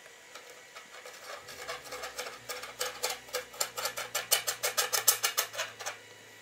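Threaded bolt of a plastic knob being twisted by hand into the end of a thin aluminium tube. Its threads grind against the metal in a run of quick scraping clicks, about five a second, that grows louder and stops near the end.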